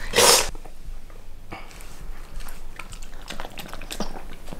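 A miniature pinscher eating quickly from a bowl: a run of wet smacking and licking clicks, after a brief noisy rustle right at the start.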